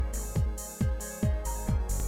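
Electronic background music with a steady four-on-the-floor kick drum, about two and a half beats a second, and hi-hats between the beats.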